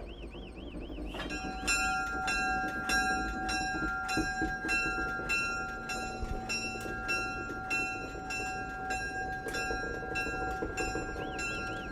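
Locomotive bell ringing, struck about twice a second, starting about a second in, over the low rumble of the train.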